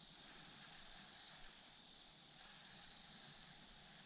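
Insect chorus, likely crickets, making a steady high-pitched drone that does not change.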